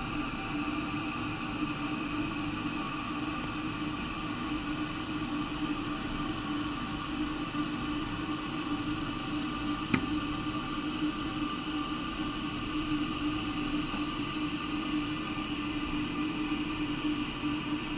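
Toilet tank refilling: the fill valve hisses steadily as water runs in, with a steady whine in the hiss. A single small click comes about ten seconds in.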